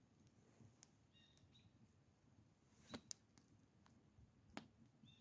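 Near silence, broken by a few faint sharp clicks and a couple of brief, faint high chirps.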